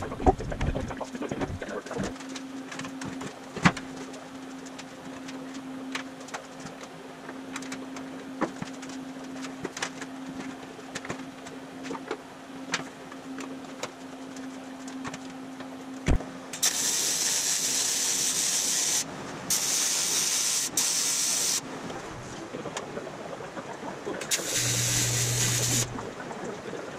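Aluminium sheet being handled and worked, with scattered clicks and knocks over a steady low hum. After that, four bursts of TIG welding arc hiss as the aluminium body panels are tack-welded, each burst lasting one to two seconds; the last has a low buzz under it.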